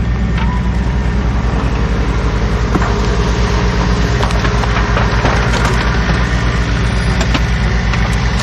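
Case backhoe's diesel engine running steadily under load, with scattered cracks and snaps of breaking wood, thickest in the middle of the stretch, as it pushes through brush and trees.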